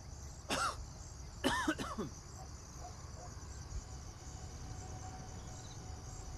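A man coughing twice, short and harsh, out of breath.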